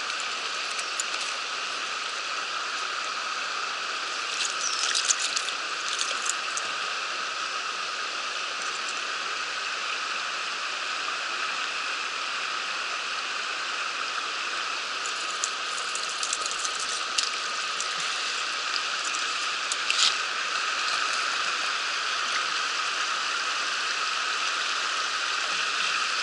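Mountain stream water rushing steadily over rocks, with a few brief clicks scattered through it.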